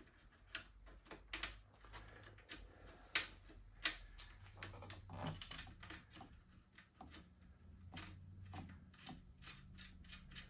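Faint, irregular clicks and light taps of small metal hardware and parts being handled.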